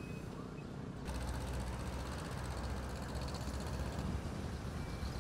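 Road traffic noise: a steady vehicle rumble that grows louder about a second in.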